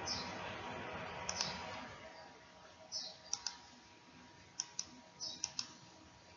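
Computer mouse clicking: about seven sharp clicks, several in quick pairs, with a few short hissing scrapes between them over a low steady hiss.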